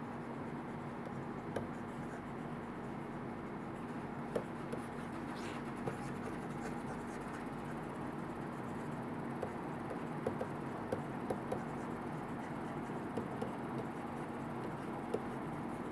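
Faint taps and scratches of a stylus writing on a tablet screen, with a few light ticks scattered through, over a steady low hum and hiss.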